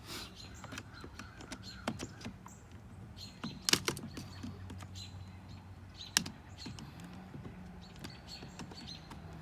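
A few sharp plastic clicks and knocks, the loudest a little under four seconds in, as the wiring pigtail connectors are worked loose from a car's driver-side power window switch, one connector stubborn to release.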